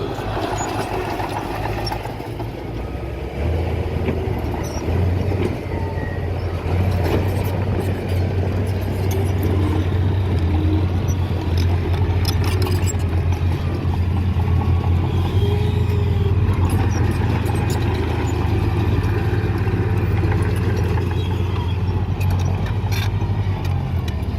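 Diesel engine of heavy construction machinery running with a steady low drone that gets louder a few seconds in, with scattered light clanks and rattles over it.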